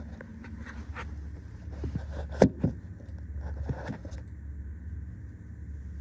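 Metal clanks, knocks and rattles as an engine and transmission are worked out of a truck's engine bay, the loudest a sharp knock about two and a half seconds in, over a steady low hum.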